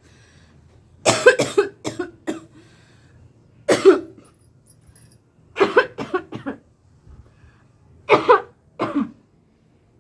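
A woman coughing in four bouts a couple of seconds apart, each bout a few sharp coughs in quick succession. The coughing is put on for a prank on her child.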